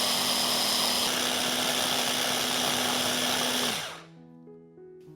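Electric blender running at high speed, grinding roasted peanuts and hazelnuts into nut butter: a loud, steady motor with a hum. Near the end it is switched off and its pitch drops as it spins down, leaving soft background music.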